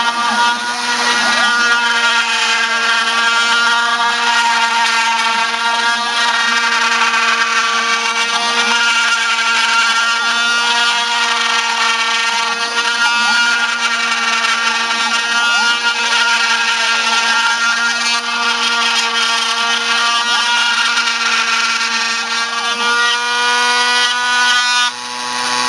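Homebuilt Arduino/GRBL CNC mill engraving wood: the Foredom flexible-shaft rotary tool spindle runs with a steady whine, while the stepper motors' tones keep gliding up and down in pitch as the axes move. Near the end the sound changes abruptly as the machine freezes, a stall the owner puts down to electrical noise from the spindle motor.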